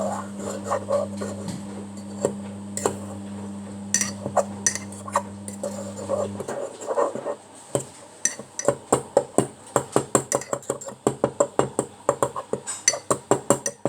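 A fork mashing Oreos in milk inside a mug, knocking and clinking against the mug in repeated strokes that turn into a quick run of about three or four taps a second in the second half. A steady low hum stops about halfway through.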